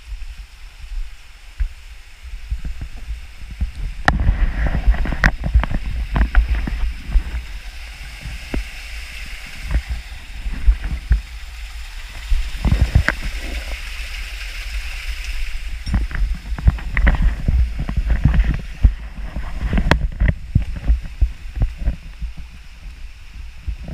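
A creek running over rocks, with irregular knocks, scuffs and low rumbling bumps as someone clambers over wet boulders, heard close on a body-worn camera.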